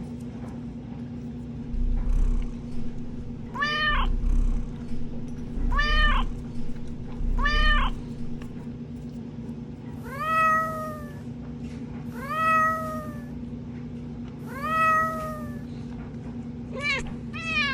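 Recorded cat meowing played back: three short meows about two seconds apart, then three longer meows whose pitch falls away at the end, then a quick string of meows near the end, over a steady low hum.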